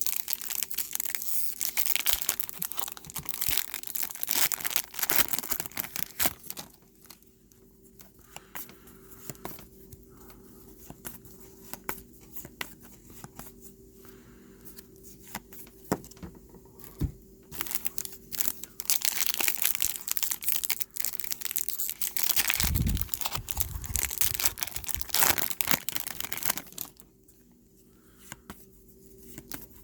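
Trading card pack wrappers being torn open and crinkled, in two spells of loud rustling with quieter handling and small clicks in between. A low thump about three quarters of the way through.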